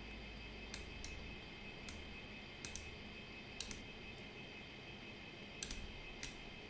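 Faint, irregular computer mouse clicks, about a dozen, some in quick pairs, over a low steady electrical hiss.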